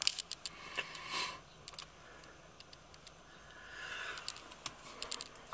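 Quiet car cabin with a few faint clicks and handling noises from the phone camera being moved, and a short hiss about a second in.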